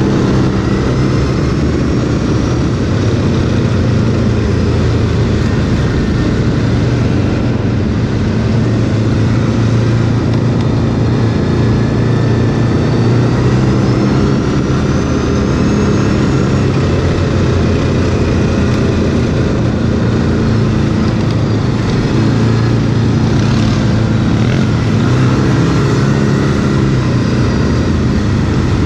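Quad (ATV) engine running steadily under throttle while riding off-road, its pitch shifting a little with the throttle.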